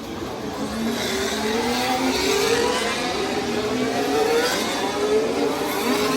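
Formula 1 cars' V6 turbo-hybrid engines accelerating past, the pitch climbing repeatedly through upshifts and getting louder about a second in.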